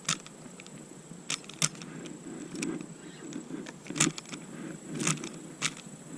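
Handling noise: about half a dozen scattered sharp clicks and light rattles of fishing gear, over a faint low rustling and a thin steady high whine.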